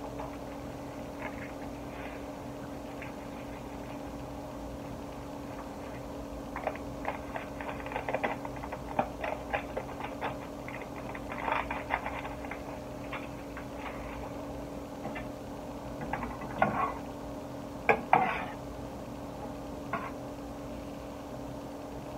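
A spoon stirring in a stainless steel saucepan, with scattered clinks and knocks against the pot, over a steady low hum.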